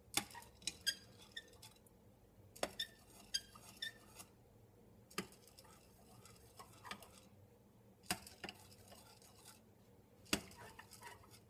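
A metal spoon stirring rice and milk in small glass yogurt jars, clinking against the glass about ten times at irregular intervals. Several clinks ring briefly.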